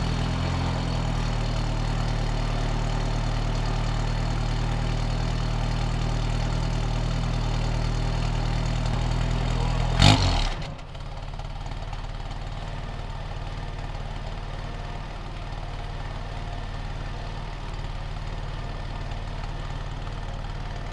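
Toyota 20R 2.2-litre four-cylinder engine idling steadily through a newly built custom exhaust. About ten seconds in there is a short loud burst, after which the idle runs on a little quieter.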